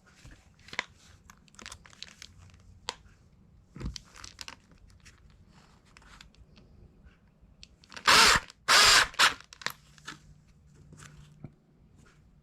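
Scattered clicks and handling of tools and a plastic plate, then a drill run in two short loud bursts about eight seconds in, boring 1/8-inch pilot holes through hard plastic.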